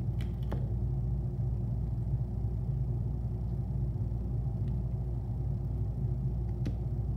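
Steady low hum, like a running machine, with a few faint crisp clicks of a tortoise biting into romaine lettuce: two near the start and one near the end.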